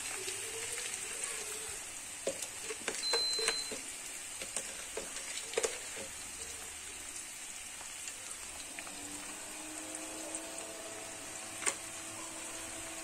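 Sarson ka saag (mustard greens) sizzling in hot oil in a pan: a steady frying hiss with scattered pops and clicks.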